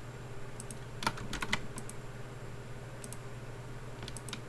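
Computer keyboard keys clicking in small, irregular clusters of taps, over a low steady hum.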